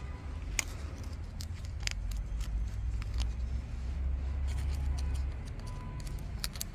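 A few light metallic clicks and scrapes as a thin metal pick is worked into a threaded bolt hole on an engine block to clean it out. A steady low rumble runs underneath.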